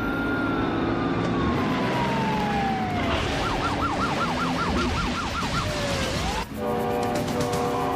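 Police car siren: a long falling wail, then a fast yelp of about four warbles a second for a couple of seconds, over a car engine's rumble. About six and a half seconds in the sound changes suddenly to an engine climbing slowly in pitch under steady tones.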